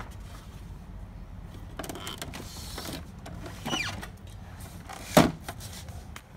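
Inkjet printer mechanism (Epson Stylus Photo T60) running in short whirring spells over a steady low hum, one spell rising and falling in pitch. A sharp knock about five seconds in is the loudest sound.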